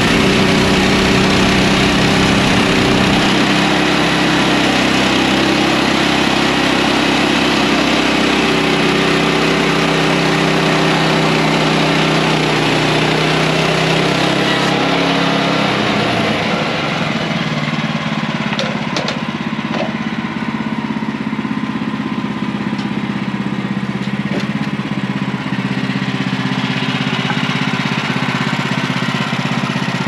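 Portable band sawmill's gas engine running under load while the band blade cuts through a log, with a steady rasping hiss over the engine. About halfway through, the hiss drops away as the cut ends, and the engine runs on more lightly, with a few light knocks of wood.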